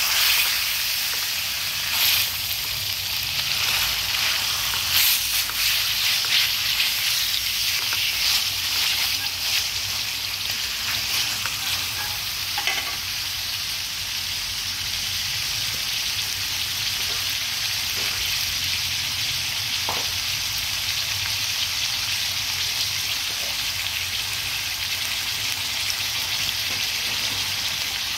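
Pork cutlets coated in minced lemongrass frying in hot oil in a stainless steel pan: a steady high sizzle. Scattered crackles and the scrape of chopsticks turning the meat come in the first half, then the sizzle goes on evenly.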